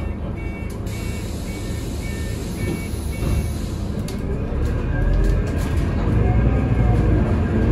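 Inside a Scania CN280UB city bus: a two-pitch warning beep repeats several times a second for about three and a half seconds, as at door closing, followed by a few clicks. From about five seconds in, the bus's Scania OC09 five-cylinder CNG engine pulls harder with a rising whine as the bus moves off, the rumble growing louder.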